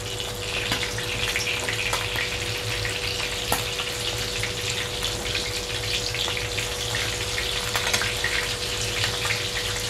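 Oil sizzling and crackling steadily in a frying pan as small anchovy fritters fry, now golden brown and being turned over. A few light clicks of a metal fork against the pan are heard.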